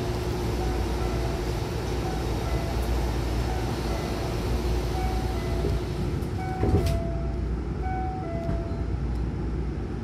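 Hankyu train's sliding passenger doors closing, ending in a sharp thud as the two door leaves meet about seven seconds in. Under it runs a steady low rumble of the train, with a tune of short chiming notes.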